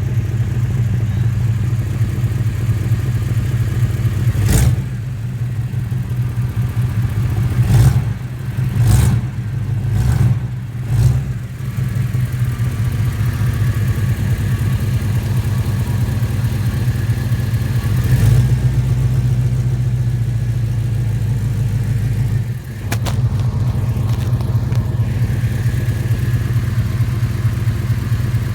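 1989 Chevy C1500 engine idling in gear with a rapid, even ticking like a valve tick, which the owner puts down to exhaust leaks at both header collectors, the right one worse. A few sharp knocks come through over the running engine, about four seconds in, around eight to eleven seconds, and twice later.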